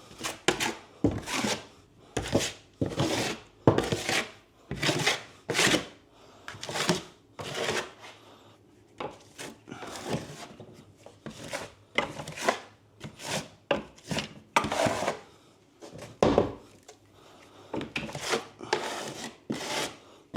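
A steel drywall knife scraping cornice cement onto a wall in repeated short strokes, about one to two a second with brief pauses between them.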